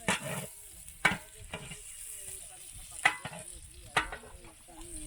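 A ladle stirring food frying in a large cooking pot, knocking and scraping against the pot about five times over a steady sizzle.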